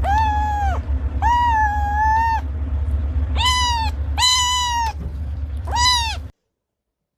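A cat meowing five times in high-pitched calls over a low steady hum. The sound cuts off suddenly a little after six seconds.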